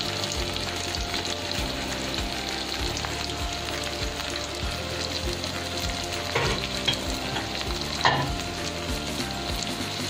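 Hilsa fish steaks frying in oil and masala paste in a pan on low heat, a steady sizzle, with two brief knocks about six and eight seconds in.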